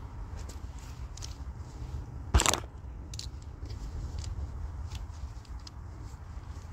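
Small clicks and taps of things being handled, with one sharp clack about two and a half seconds in, over a low steady rumble.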